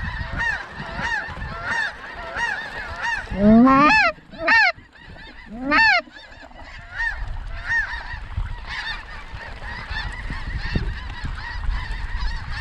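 Snow goose calls: a steady stream of short, high honks about twice a second, with three much louder honks between about 3.5 and 6 seconds in.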